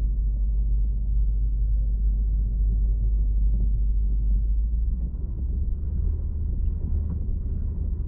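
Dishwasher running, heard through contact microphones on its stainless-steel door: a steady low churn and rumble. About five seconds in, the deepest hum shifts a little higher.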